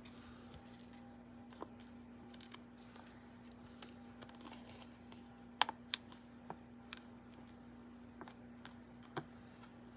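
Faint clicks, taps and rustles of paper and plastic from tiny foam adhesive dimensionals being peeled off their backing sheet and handled. Two sharper clicks come close together a little past halfway, over a faint steady hum.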